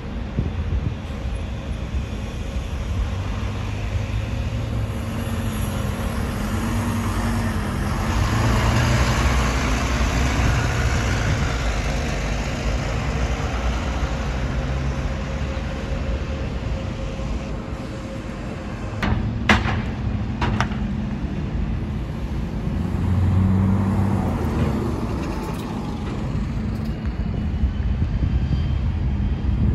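Buses' engines running as they pull away and drive past, swelling louder twice as buses move off. About two-thirds of the way through come two short, sharp sounds about a second apart.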